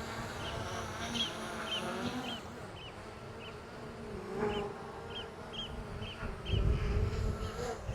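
DJI Mini 4 Pro drone's propellers buzzing close by, their pitch wavering as it is brought down to be caught by hand. Eurasian oystercatchers pipe over it in a run of short, sharp calls, about two a second. A low rumble is loudest about seven seconds in.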